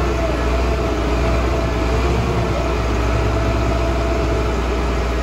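Heavy diesel truck engine running steadily at idle, a deep rumble with a steady whine above it.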